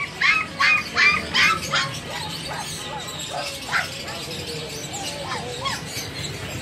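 Small dog yapping rapidly, about three short high yaps a second, stopping about two seconds in. Fainter scattered animal calls follow.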